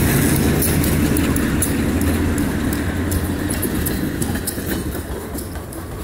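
Freight train's covered hopper cars rolling past close by, wheels clicking and clanking over the rails. Under them the low rumble of the GE B23-7 diesel locomotives fades over the first few seconds as they pull away.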